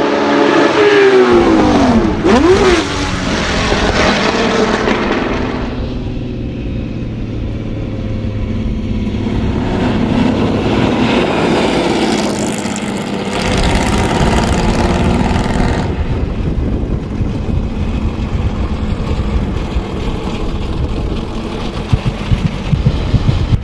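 Porsche 917 racing car's air-cooled flat-twelve engine running hard and passing by, its pitch bending up and down as it revs and goes past, over several cut-together shots. Near the end the engine note turns choppy, with sharp uneven pulses.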